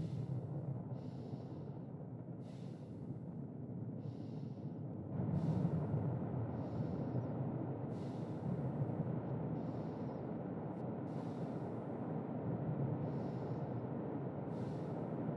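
A man's slow, deep sleeping breaths, each in-breath and out-breath an airy hiss, about one every second or so, over a steady low storm rumble that grows louder about five seconds in.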